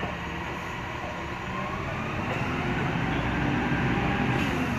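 Tadano mobile crane's engine running and growing louder about two seconds in as it drives the hydraulic outrigger jack down onto its steel pad, with a faint rising whine near the end. A brief knock at the very start.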